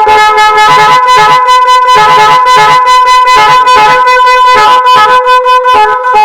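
Twin-horn multi-sound car air horn kit playing one of its tune patterns: loud horn tones switching between pitches in a string of short blasts and longer held notes.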